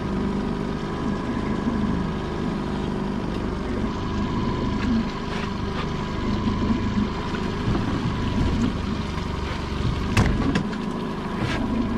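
Boat's pot-hauling winch running with a steady whine, hauling a lobster pot up on its rope. About ten seconds in the pot comes out of the water with a splash and a knock.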